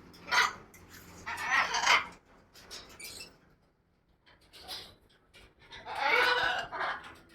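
Birds calling in a few separate harsh bursts, the loudest and longest near the end.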